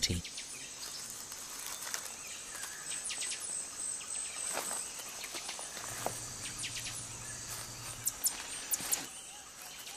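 Night chorus of Amazon rainforest insects and frogs: a steady high insect trill over a background hiss, with scattered chirps, a low steady drone for about two seconds midway, and a few sharp clicks near the end.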